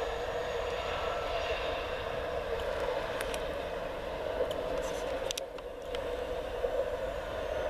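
A CP class 0450 (UDD 450) diesel multiple unit running at a distance, heard as a steady hum. A few sharp clicks come about three and five seconds in.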